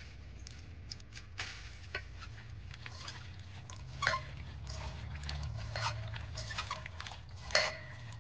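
Hands squeezing and tossing freshly sliced raw onions with tomato and chilli in a stainless steel bowl: wet crunching and rustling with sharp clinks on the steel, the loudest, briefly ringing, about four seconds in and near the end. A small knife slices a tomato over the bowl at the start.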